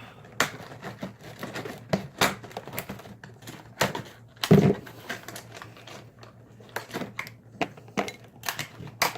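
Irregular sharp clicks and small hard taps from handling threaded air hose connectors, with one louder knock about halfway through.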